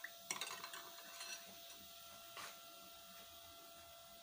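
Metal spoon stirring milk and cream in a glass bowl, clinking faintly against the glass a few times in the first second and a half, with one more tap about midway.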